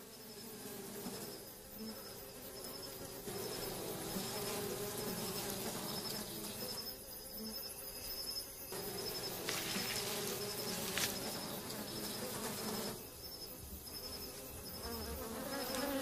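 A swarm of African honeybees buzzing around their hive as it is smoked with a smouldering torch, a steady drone that swells and dips. Crickets chirp over it in a high, evenly pulsing trill.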